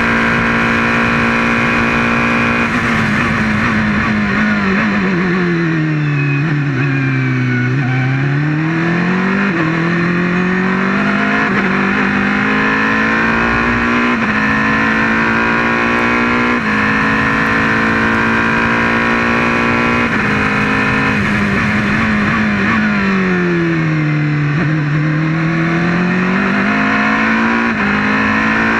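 Prototype race car's engine heard from the cockpit at high revs. Twice its pitch drops as the car slows for a corner, then climbs again in steps as it accelerates up through the gears.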